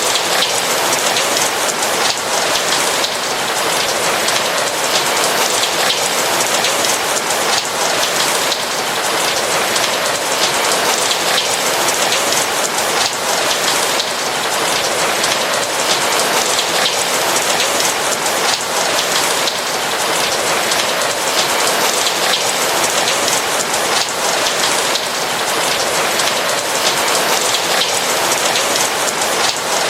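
Steady rain falling on a roof: a dense, even hiss full of countless small drop hits.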